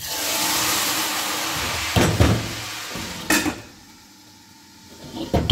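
A tadka of hot ghee with cumin and chilli is poured from a karahi into a pot of kadhi, hissing and sizzling loudly as the hot fat hits the curry. Metal clanks of the pan and pot lid come about two seconds in and again a little later, and the sizzle fades by about four seconds. Another clank comes near the end.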